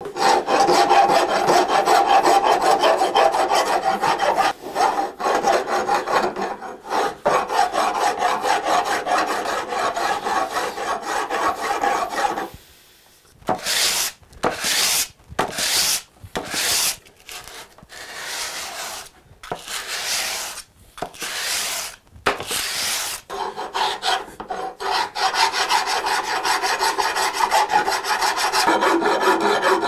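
Hand file or rasp scraping the infill plane: fast continuous strokes for about twelve seconds, a short pause, then a run of slower separate strokes, then fast scraping again.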